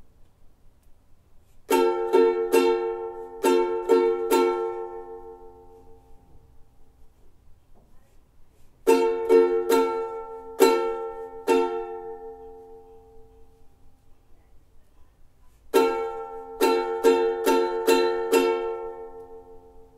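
Ukulele strumming an F chord in three short rhythmic phrases of about six strums each, with pauses of about four seconds between them.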